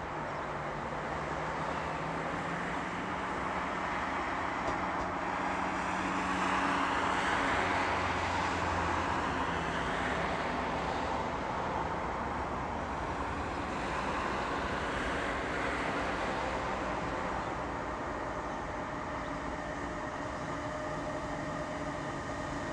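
Electric freight train approaching from a distance, its rumble mixed with road traffic noise. A passing vehicle swells and fades about a third of the way in, another more faintly later, and a faint steady whine comes in near the end as the locomotive draws closer.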